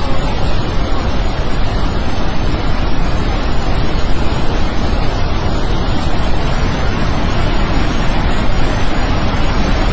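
Floodwater from a glacier burst rushing down a river channel, a loud, steady roar of water.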